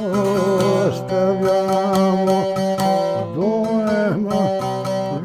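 Background music played on a plucked string instrument: a melody of bending, sliding notes over a steady low drone.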